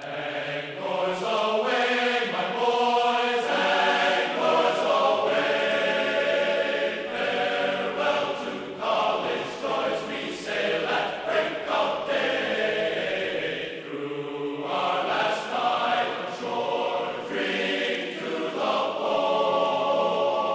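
Choir-like vocal music: several voices singing held notes together, the chords shifting every second or two.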